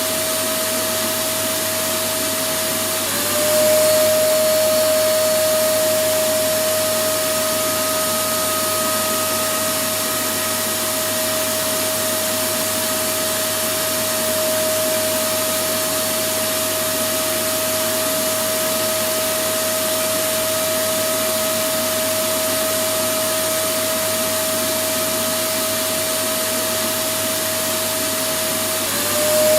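Electric vacuum cleaner running steadily, a full rushing noise with a steady motor whine. About three seconds in, and again near the end, the whine dips briefly and settles slightly higher while the sound gets a little louder.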